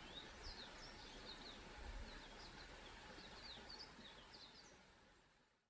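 Faint, rapid high chirps of small birds over low outdoor background noise, fading out near the end.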